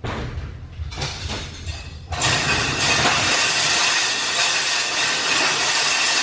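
Steel roll-up garage door being raised by hand: a few clanks, then from about two seconds in a loud, steady metal rattle as the slats roll up.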